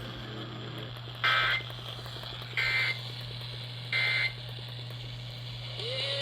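Emergency Alert System end-of-message data bursts: three short buzzy digital squawks about a second and a half apart, marking the end of the alert message. A steady low hum runs underneath.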